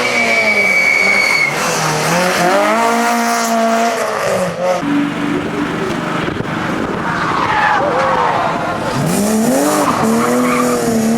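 Rally car engine revving hard and easing off as the car drives through a stage, its pitch rising and falling with the throttle and gear changes, then climbing again near the end, over tyre and road noise.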